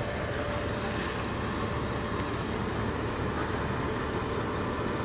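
Heavy diesel engine running steadily at a low rumble, from the machinery unloading a crawler piling rig off a lowboy trailer.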